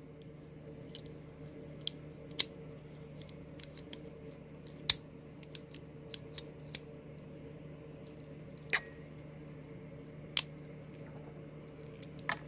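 Small spring scissors of a multi-tool pocketknife being worked: scattered sharp clicks, one every second or two, over a faint steady hum.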